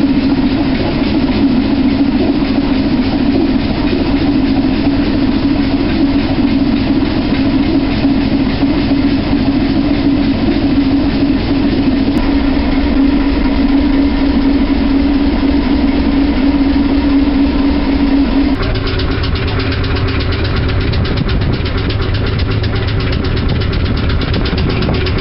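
Multi-cylinder hot-bulb semi-diesel marine engine running steadily up close. About three-quarters of the way through, the sound changes abruptly to a different steady engine note, heard from the deck below the exhaust stack.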